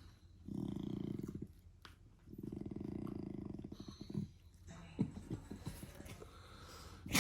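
German shepherd puppy making two low, drawn-out grumbling vocal noises, the first about a second long and the second about two seconds, followed by softer short snuffles.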